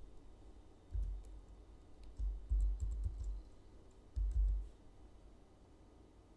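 Typing on a computer keyboard, keying in a six-character ID: three short clusters of keystrokes about a second in, around two to three seconds in and around four seconds in. Each cluster carries a dull low thump, with light clicks above it.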